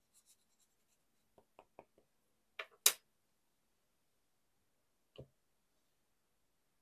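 Wood-mounted rubber stamp being inked and pressed onto a paper card: a few soft taps, then two sharp clicking knocks about three seconds in, and one duller knock a little after five seconds.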